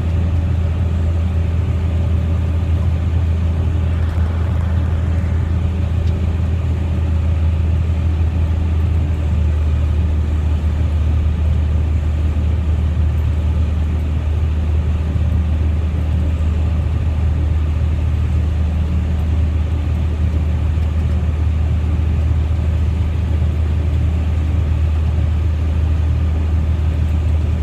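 John Deere 9220 four-wheel-drive tractor heard from inside its cab: a steady, unchanging low engine drone with cab rumble.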